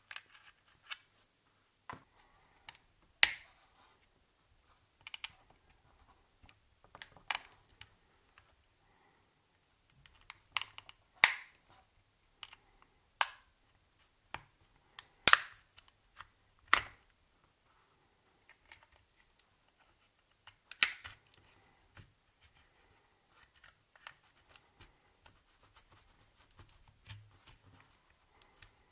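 Plastic housing of a Siemens A40 mobile phone being pried open with a plastic opening pick: irregular sharp clicks as the snap-fit clips give way, several seconds apart, with light scraping and handling noise between.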